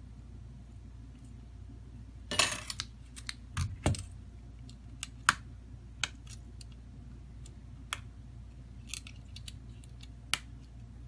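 Handling noise from an opened smartphone being turned over and worked on by hand: a short rattle, then a couple of low knocks as it is set down on the mat, followed by scattered sharp plastic clicks and taps. A steady low hum runs underneath.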